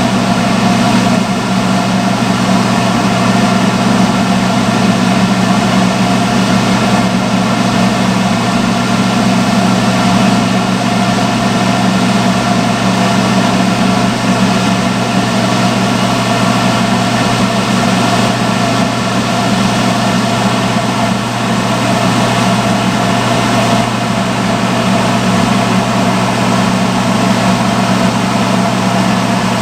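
Salon hood hair dryer running with a steady, unchanging blower hum.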